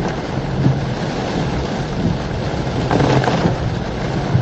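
Heavy rain falling on a Toyota Fortuner 2.8 with the steady low hum of its diesel engine and wet-road tyre noise, heard from inside the cabin. A brief louder swell comes about three seconds in.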